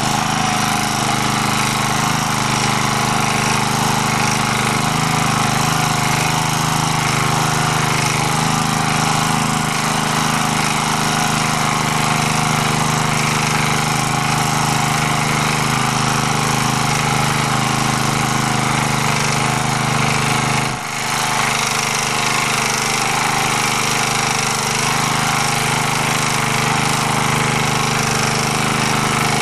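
MD3 walk-behind tractor's engine running steadily under load while its rotary tiller churns the soil in first gear. The level dips briefly about two-thirds of the way through.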